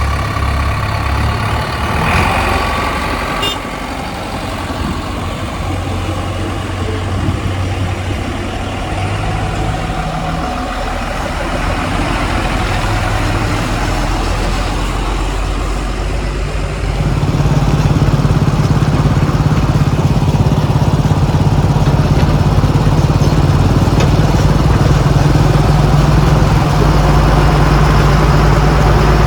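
Diesel engine of a JCB 3DX backhoe loader running at work; about two-thirds of the way through it revs up and holds at the higher speed, louder than before.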